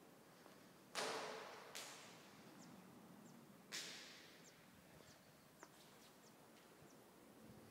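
Three sharp knocks or bangs in quick succession, each dying away with a trailing echo, with a few faint, short high chirps in between over near silence.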